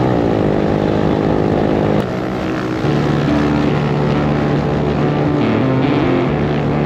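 Small single-cylinder motorcycle engine running under way, heard from on the bike. Its pitch falls over the first second as the throttle eases, then it runs on a steady note, with a brief dip and recovery in pitch a little past the middle.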